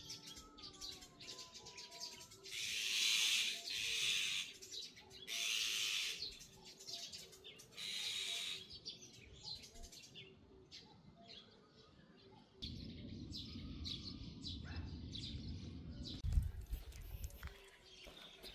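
Azure-winged magpies giving harsh, rasping alarm calls, four loud ones in the first nine seconds, then thinner chatter: they are on guard against a cat. A low rumble comes in past the middle.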